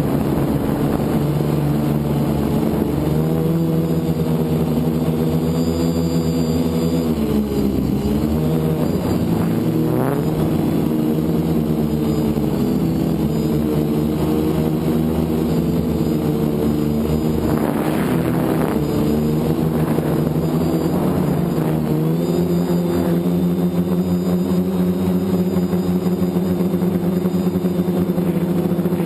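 FPV multirotor drone's electric motors and propellers buzzing, the pitch dipping and rising again several times as the throttle changes, settling steadier in the last few seconds.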